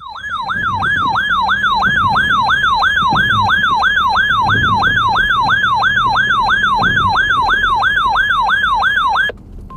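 Siren-like electronic alert tone warbling rapidly up and down, about three sweeps a second, sounded between severe thunderstorm warnings. It runs for about nine seconds and cuts off suddenly near the end.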